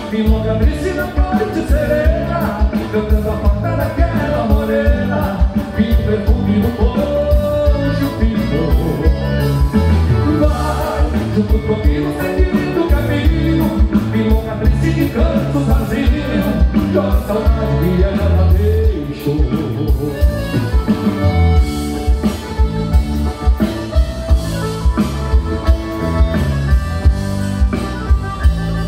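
Live gaúcho regional music played by a band, with a steady drum beat and a singing voice.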